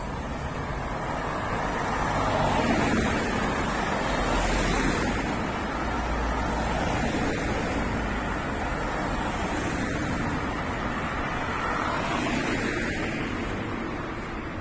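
Light road traffic: cars passing along a city street, their tyre and engine noise swelling and fading twice.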